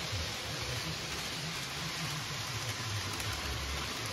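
Model train running along the track: a steady rolling hiss with an uneven low rumble underneath.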